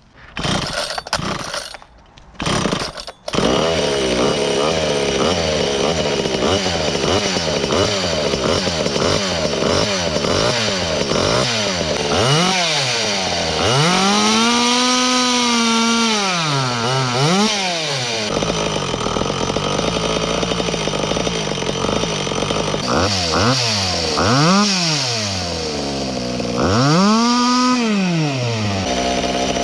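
Small two-stroke chainsaw running on methanol mixed 50:1 with castor oil. It is pull-started and catches about three seconds in after a couple of short bursts, then runs with the throttle repeatedly revved up and let back down.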